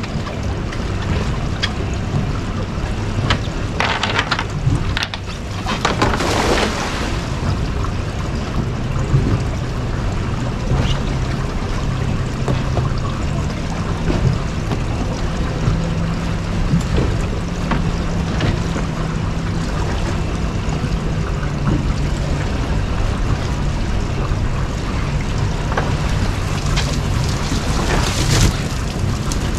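Twin Suzuki outboard motors idling with a steady low hum over water and wind noise. About six seconds in, a cast net lands in the water with a splash, and the wet net is then hauled back aboard, water trickling off it.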